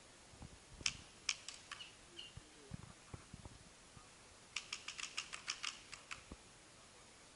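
Distant paintball markers firing: a few scattered sharp pops about a second in, then a rapid string of about ten shots around five seconds in.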